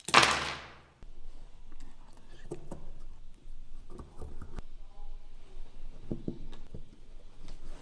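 A loud knock on wood at the start, ringing out for about a second, then quieter scattered clicks and light scraping of small hand work on wooden parts.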